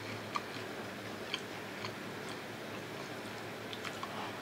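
A person chewing a mouthful of beef stir-fry rice bowl, heard as a few faint, scattered mouth clicks.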